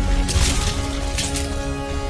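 Logo intro music with a heavy low bass, overlaid with two bursts of crashing, crumbling stone sound effects: one about a third of a second in, the other past a second.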